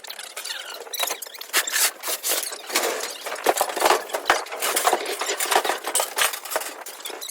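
Irregular clatter of items being handled and moved about: many sharp knocks and clicks with some scraping between them.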